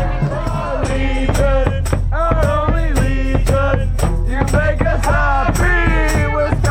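Music with a singing voice over a steady bass and regular percussion hits.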